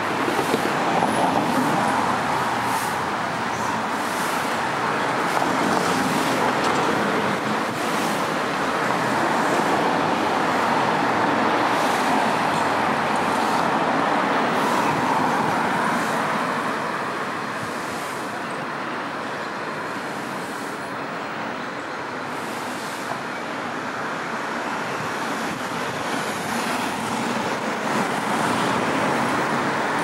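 Steady rushing outdoor city ambience, dominated by a continuous traffic-like roar that swells and eases slowly over several seconds.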